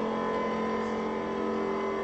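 Live electronic music: a steady drone of several held tones over an even hiss-like haze, without beats or attacks.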